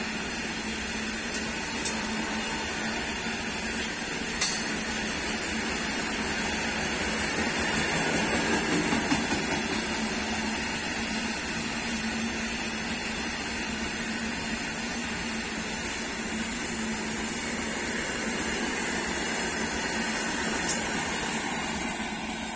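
WAG-9 electric locomotive working a loaded freight train, a steady hum with a gentle swell about eight seconds in and a few faint clicks.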